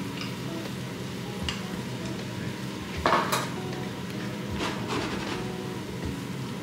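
Blanched rice cakes stirred into soy-based sauce in a frying pan, a utensil scraping and clinking against the pan over a faint sizzle. The loudest knock comes about three seconds in, and a few more follow near the end.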